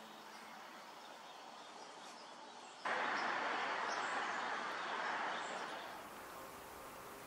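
Outdoor ambience: a steady rushing noise that comes in abruptly about three seconds in and fades away near the end, with a few faint high bird chirps over it.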